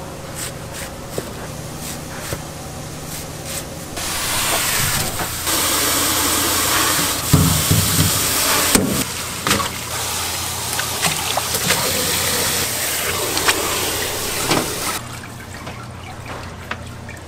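Tap water running hard for about eleven seconds, starting abruptly about four seconds in and cutting off shortly before the end, with a few knocks of something handled under the stream. Light clinks of utensils come before the water.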